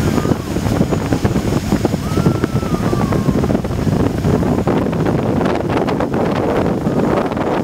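Wind buffeting the microphone aboard a speedboat running at speed, over the engine and the rush of spray from its wake. A brief wavering high tone sounds about two seconds in.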